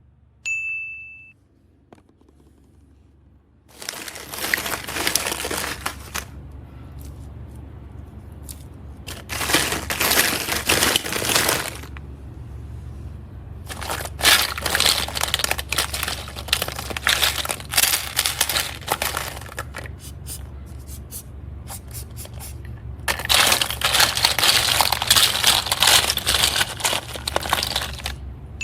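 Hands working slime and its plastic containers: crinkling, scraping and small clicks in several stretches, after a short high chime near the start.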